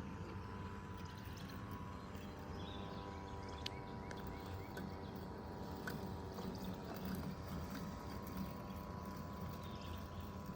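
Robot lawnmower running: a steady electric-motor whine over a low hum, with a few light clicks.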